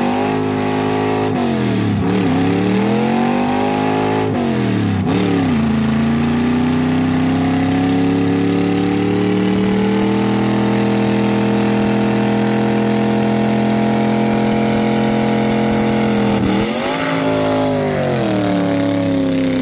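Car engine revving hard during a burnout with the rear tyres spinning on the pavement. The revs rise and fall several times in the first few seconds, then climb and are held high and steady for several seconds, with a short dip and rise near the end.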